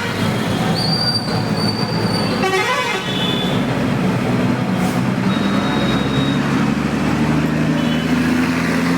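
Road traffic with vehicle horns tooting several times in the first half; a vehicle engine's drone rises slowly in pitch near the end.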